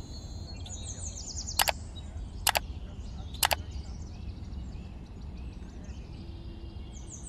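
Outdoor ambience of small birds chirping in quick, falling trills over a steady low rumble. Three sharp clicks about a second apart, the loudest sounds, come between about one and a half and three and a half seconds in.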